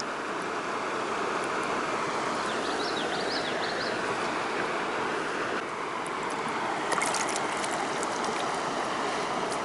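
Creek water flowing and rippling steadily around the wading angler, with a few faint high chirps near the start and one short sharp noise about seven seconds in.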